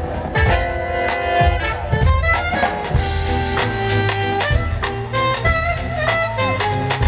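Live jazz band playing a swing tune: a horn section of saxophones, trombone and trumpet over a drum kit, with held notes and steady drum strokes.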